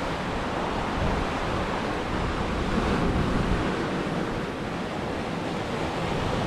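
Surf breaking steadily on a sandy, rocky beach, with wind gusting on the microphone.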